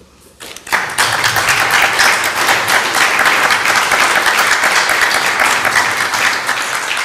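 A small audience applauding, the clapping starting under a second in and holding steady.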